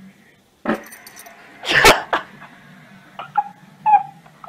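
Short animal calls: a sharp call near the start, a loud harsh burst about a second later, then two brief calls near the end.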